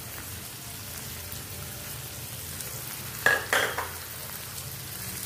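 Chopped onion, carrot and peas sizzling in hot oil in a frying pan, a steady hiss. About three seconds in, two sharp clanks of utensils against the pan as the diced capsicum goes in and is stirred.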